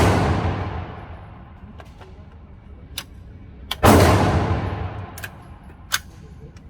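Gunshots at a shooting range. One loud shot with a long echoing tail comes about four seconds in, after the fading echo of a shot fired just before. Several fainter, sharp cracks fall in between.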